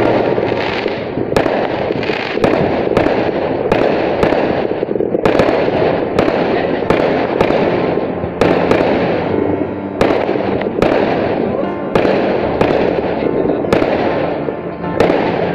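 Aerial fireworks going off in rapid succession: a sharp bang about twice a second over a continuous crackle and hiss.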